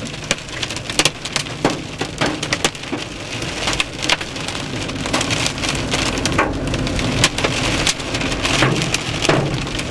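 Heavy rain pelting a car's windshield and roof during a supercell thunderstorm: a steady patter with many sharp, irregular drop strikes.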